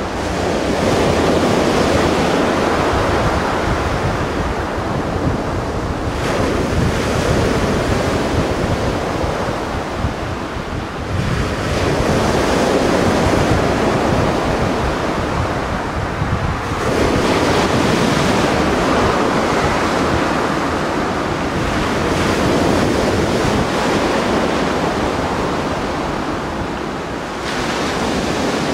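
Mediterranean Sea waves breaking and washing on the shore, the surf swelling up every several seconds, with wind rumbling on the microphone.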